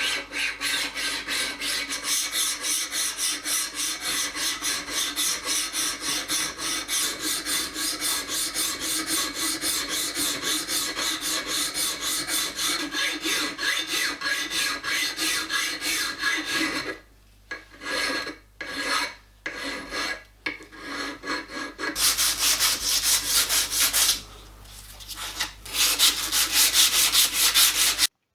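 Hand file dressing the edges of a cast iron workpiece: quick, even rasping strokes. About two-thirds through, the filing breaks into a few short strokes, then picks up again in two more runs before stopping abruptly.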